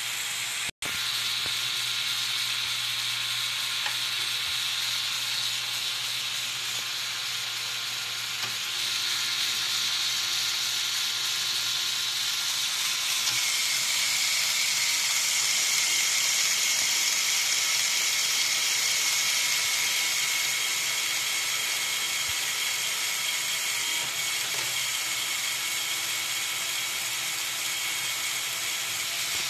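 Lego Technic 8258 crane truck's motor and plastic gear train whirring steadily as the crane boom raises and unfolds. The sound cuts out for a split second near the start, shifts about nine seconds in, and from about thirteen seconds in a higher whine joins it.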